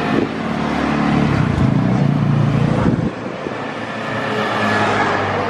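Motor vehicle engine running on the road with road noise. The engine note drops about three seconds in, then builds again.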